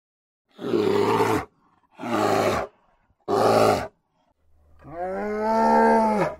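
Brown bear roaring: three short, rough roars about a second apart, then a longer, more tonal call near the end.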